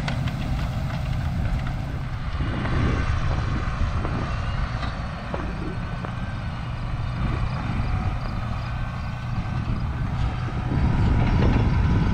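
John Deere 8310R tractor's six-cylinder diesel engine running steadily as it pulls a red litter spreader past, with a few brief knocks; it gets louder near the end as it comes closer.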